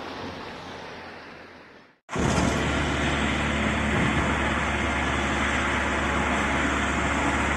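A fainter outdoor noise fades out about two seconds in. After a brief break, a louder, steady low rumble of road traffic begins.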